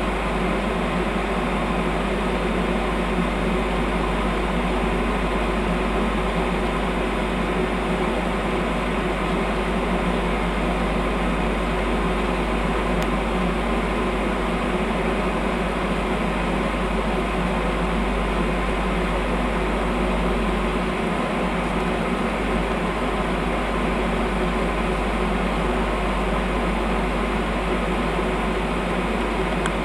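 A stationary Newag Acatus electric multiple unit's on-board equipment running with a steady, even whir and hum.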